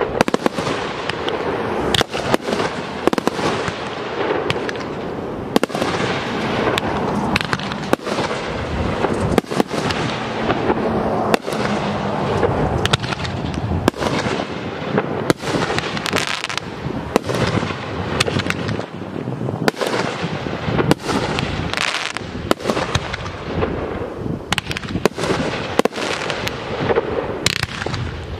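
Aerial fireworks display: a dense, continuous barrage of shell bursts and reports, several a second, over a steady rumble and crackle.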